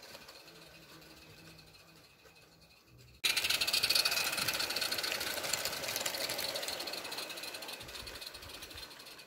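Kit-built 'Victory' 16mm-scale live steam locomotive running with its train of wagons rattling along the garden track. The sound is faint at first, cuts in loud about three seconds in, then fades slowly as the train passes.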